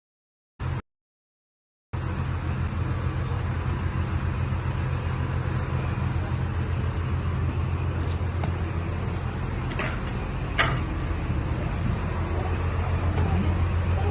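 A steady low mechanical hum under a broad rush of noise, starting suddenly about two seconds in after a silent gap and a brief blip, with a couple of short clicks or knocks past the middle.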